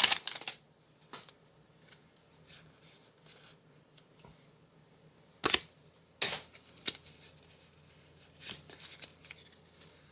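Pokémon trading cards being handled and slid over one another, in faint scattered rustles and clicks, with two sharper snaps about five and a half and six seconds in.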